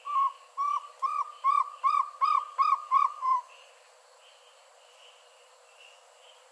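Jungle owlet calling: a run of about nine short hooting notes, each rising and falling slightly in pitch, about two and a half a second and building in loudness, ending about three and a half seconds in.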